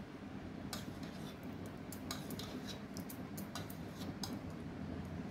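Metal spoon clinking and scraping against a stainless-steel pot as thick yogurt is scooped out onto flour: a run of small, irregular clicks.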